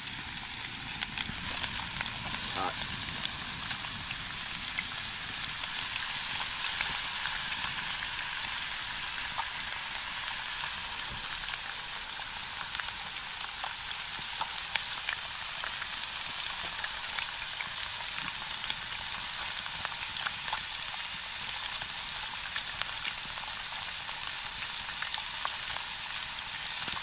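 Skin-on brook trout frying skin side down in lard in a metal pan on a grate over a campfire: a steady sizzle with many small pops and crackles.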